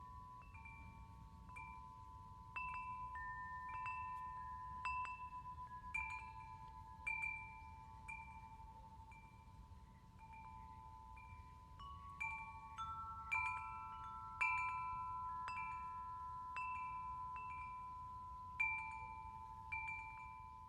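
Wind chimes struck at irregular moments, a few strikes every couple of seconds, each tone ringing on and overlapping the next. The loudest strikes come about two thirds of the way through and near the end, over a faint low rumble.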